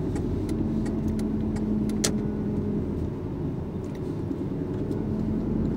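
A car being driven, heard from inside the cabin: a steady low engine and road rumble with a faint hum, and a single sharp click about two seconds in.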